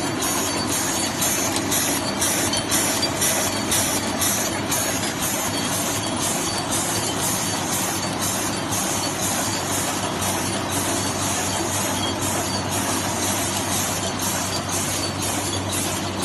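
Automatic flow-wrapping packaging machine running steadily while packing single plastic spoons: a continuous mechanical clatter with a regular quick beat, about two to three pulses a second.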